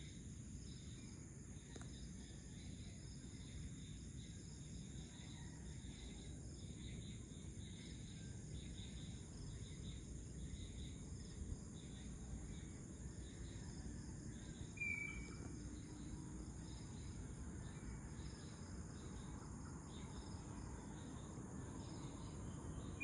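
Faint outdoor ambience of a steady, high-pitched insect chorus, crickets, over a low background hum. A single short chirp sounds about fifteen seconds in.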